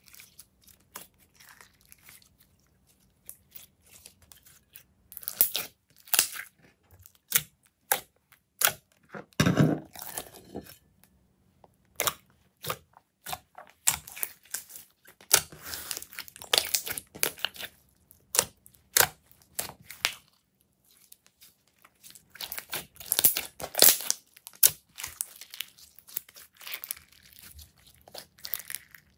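Clear jelly slime with sequins being stretched, pressed and squeezed by hand, giving irregular sticky crackles and clicks that come in dense clusters, with one fuller squelch about ten seconds in.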